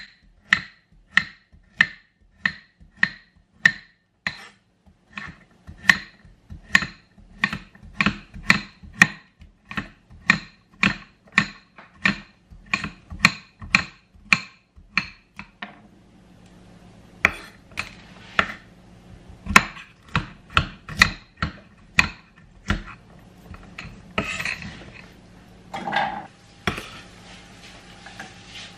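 Chef's knife chopping carrots on a cutting board: a steady run of knocks, about two to three a second, that thins out and turns irregular after about sixteen seconds, with some kitchen clatter near the end.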